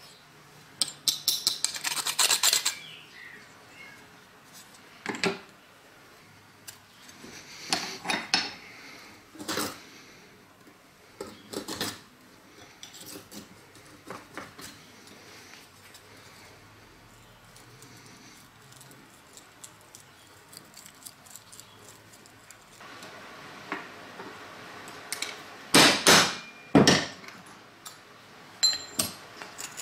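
Metal clinks and knocks as a rusty steel knife tang with a brass bolster is handled against a steel bench vise, coming in scattered clusters with a quick run of the sharpest knocks near the end.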